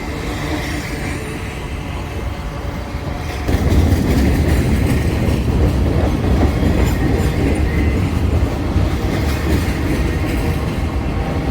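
Freight train cars rolling past close by: a steady rumble and clatter of steel wheels on the rails, with no locomotive engine, since the engines have already gone by. It gets clearly louder about three and a half seconds in.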